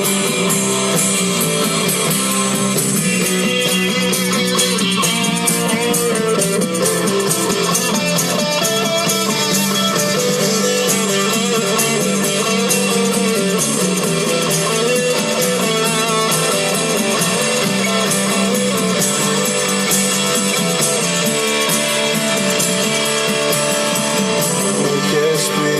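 Live band playing an instrumental break without vocals, led by guitar over a steady accompaniment.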